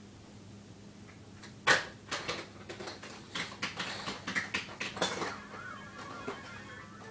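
A run of sharp knocks, taps and rubbing clicks as a baby's hands grab and bump the phone that is recording, the first knock the loudest, followed by a short wavering squeak.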